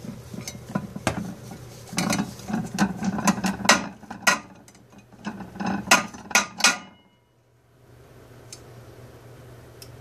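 An African grey parrot's beak tapping and knocking on ceramic dinner plates: a run of irregular clinks and taps, in clusters, for about seven seconds, then only a couple of faint ticks.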